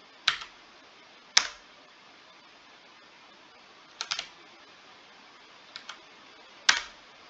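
A few separate computer keyboard keystrokes: single clicks about a quarter and one and a half seconds in, a quick group of two or three around four seconds, two light taps near six seconds, and the loudest keystroke near the end.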